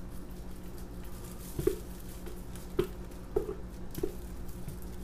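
Thick cold-process soap batter plopping from a plastic pitcher into a loaf mold: four short wet plops over a couple of seconds, over a steady low hum.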